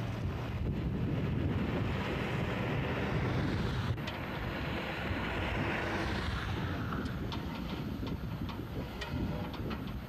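Outdoor wind rumbling on the microphone over road traffic, with a vehicle swelling past and fading away in the middle. There is a sharp click about four seconds in and a few faint clicks near the end.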